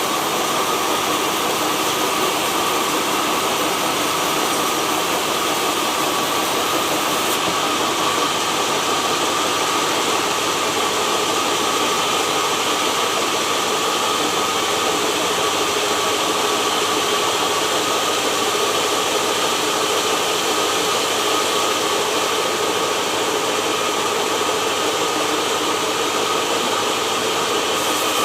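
Sawmill saw running: a loud, steady machine noise with a constant high whine throughout.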